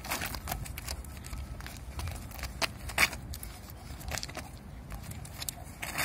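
Irregular short scuffs and taps of two people's shoes stepping and sliding on gritty concrete, and their forearms and hands knocking and brushing together as they practise Wing Tsun drills, the sharpest tap about three seconds in, over a low steady rumble.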